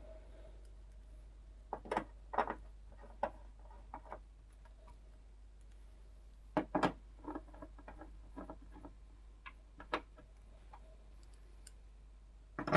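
Scattered small clicks and light knocks of a TV power supply board and its fittings being handled and fitted back into an LED TV chassis, in short irregular clusters.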